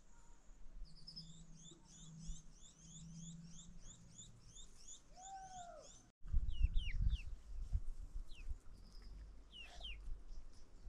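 Songbirds calling: one bird repeats a rapid series of high chirping notes, about four a second, for the first half. After a brief break about six seconds in, scattered single chirps continue over a low rumble.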